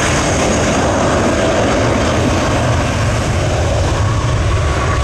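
Airliner jet engines running loud and steady: a deep rumble with a faint high whine over it.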